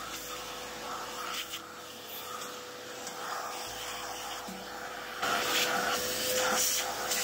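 Shop vacuum running steadily with a constant whine, sucking leftover coffee beans and loose grounds out of an espresso grinder. It grows louder about five seconds in.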